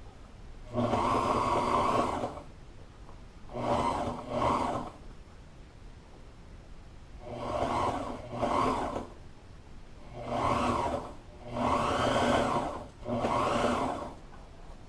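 A small electric motor, like that of a handheld power tool or appliance, runs in about eight short bursts, each half a second to a second and a half long, with short pauses between.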